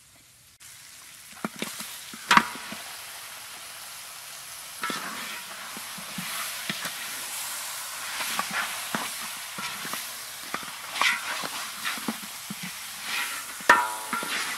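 Raw beef ribs tipped into a hot wok of oil, chilies and spice paste start sizzling suddenly, and the sizzle then runs steadily. A metal spatula scrapes and clanks against the wok as the ribs are stirred, with a loud clank about two seconds in.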